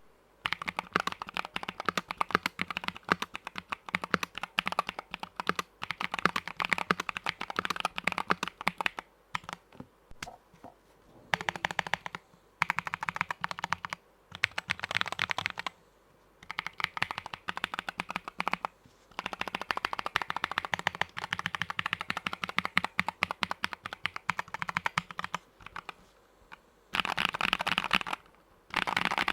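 Typing sound test on an Akko ACR64 gasket-mounted acrylic-case keyboard with MMD Holy Panda tactile switches and Akko Retro Carbon low-profile keycaps: rapid key clacks in bursts of a few seconds, separated by short pauses.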